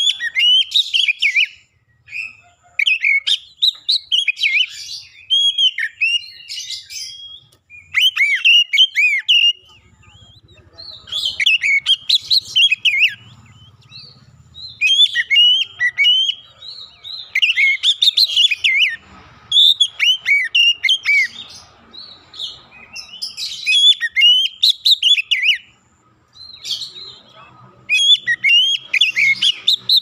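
Male Oriental magpie-robin (kacer) singing: clear whistled song phrases of quick rising and falling notes, delivered in bursts of a second or more with short pauses between them.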